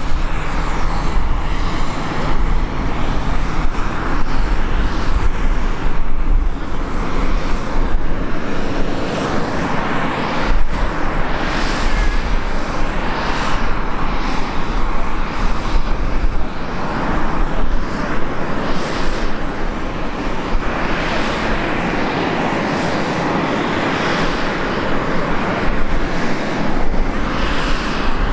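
Airbus A319's CFM56 turbofan engines running at taxi power: a steady jet rumble and hiss that swells and fades every few seconds.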